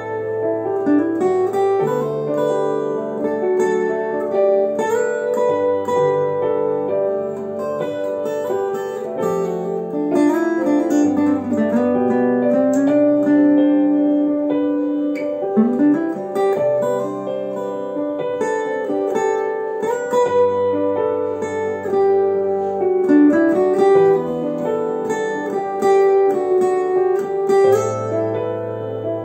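Crafter acoustic guitar fingerpicked solo: a melody of plucked notes over a shifting bass line, with a few notes sliding in pitch.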